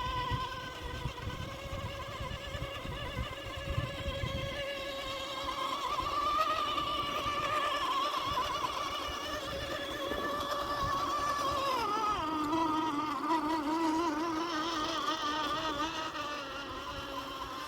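Axial SCX10 II RC crawler's electric motor and geared drivetrain whining as it crawls, the pitch wavering with the throttle and dropping sharply about twelve seconds in as the truck slows; low crunching from the tyres on the ground in the first few seconds.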